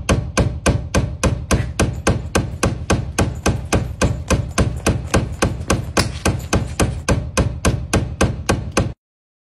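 Rapid, evenly spaced hammer strikes, about four a second, stopping abruptly near the end.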